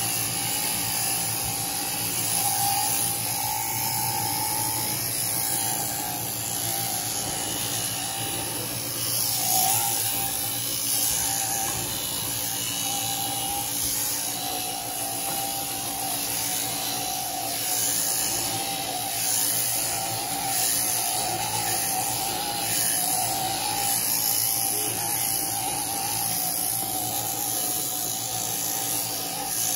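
Sheep-shearing machine handpiece running steadily as it cuts the fleece off a ram.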